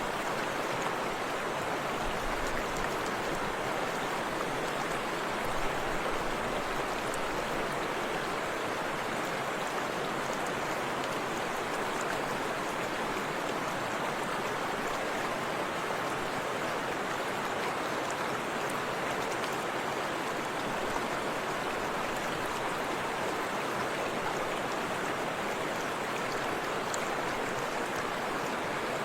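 Forest river flowing over rocks, a steady rushing of water.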